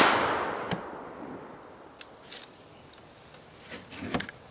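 The echo of a TriStar Viper G2 semi-automatic shotgun's shot, fading away over about a second and a half. A few light clicks and knocks follow, two seconds in and near the end.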